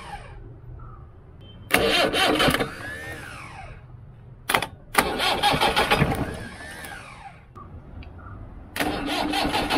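Starter motor cranking a 1989 Mahindra jeep's engine in three bursts of a couple of seconds each, the starter's whine rising and falling, with the engine not yet catching: a cold start after four years standing. A couple of sharp clicks come just before the second burst.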